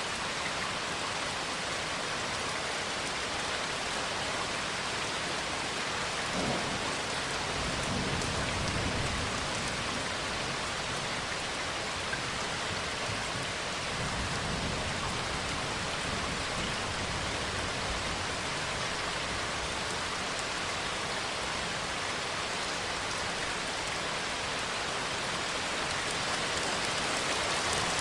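Steady rain falling, with low thunder rumbling from about six seconds in and again around fourteen seconds.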